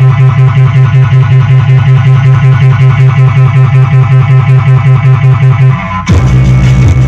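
Music played loud through a car sound system: an instrumental stretch with a heavy bass line pulsing about four times a second, breaking off and coming back in a new pattern about six seconds in.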